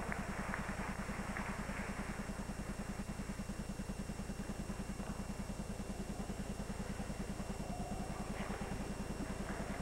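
Low, steady hum with a fast even pulse of about a dozen beats a second, plus faint hiss. There is no clear music or skate sound over it.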